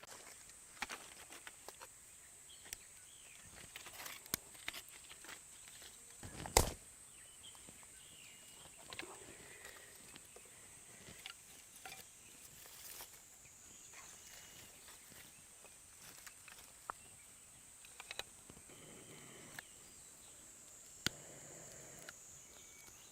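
Food and utensils being handled for outdoor cooking: scattered light taps, clicks and rustles, with one sharp knock about six and a half seconds in, over a steady high hiss.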